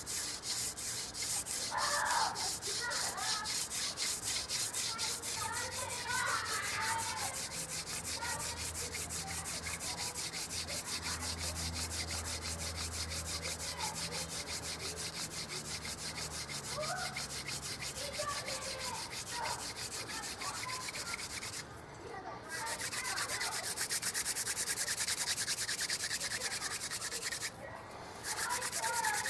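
Hand-drill friction fire: a mule fat (seep willow) spindle twisted back and forth between the palms on a yucca hearth board, wood grinding on wood in a fast, even rhythm to build an ember. The drilling breaks off briefly twice, about three-quarters of the way through and again near the end.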